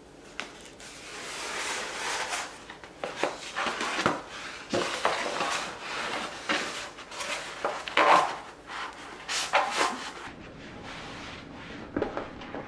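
A large sheet of self-adhesive interior film being handled and laid over a cabinet panel by gloved hands: rustling and crinkling, with scrapes and light knocks against the board. It is loudest about eight seconds in and quieter near the end.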